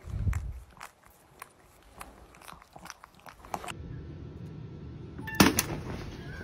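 A low thump, then a run of small, irregular, sharp clicks and crunches. After a cut, a Mickey Mouse jack-in-the-box springs open with a loud snap about five and a half seconds in.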